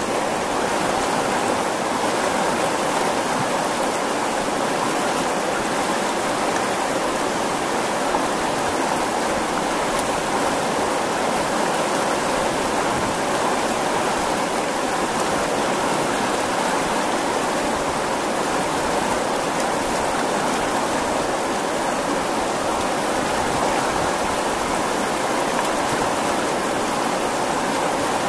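The Botan River rushing steadily past the bank over rocks and small rapids, a constant, even wash of flowing water.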